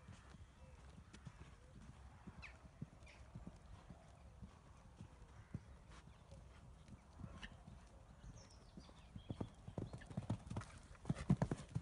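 Connemara mare's hooves cantering on a sand arena, a steady run of dull hoofbeats that get much louder near the end as she comes in to a fence, jumps and lands.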